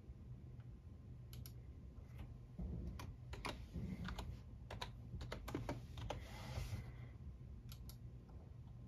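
Computer keyboard keys and mouse buttons clicking: a scattering of separate light clicks, some in quick pairs, with a short rustling noise about six seconds in.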